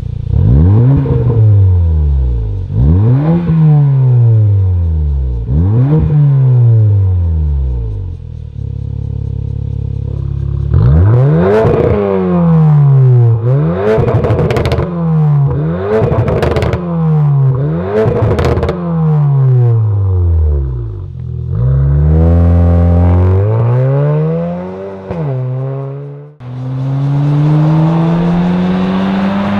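Porsche Macan 2.0T's turbocharged four-cylinder engine through an Armytrix cat-back valvetronic exhaust, revved in repeated blips that rise and fall in pitch, with a few seconds of steady idle between. The later, quicker blips are punctuated by sharp pops. Near the end the engine pitch climbs steadily as the car accelerates.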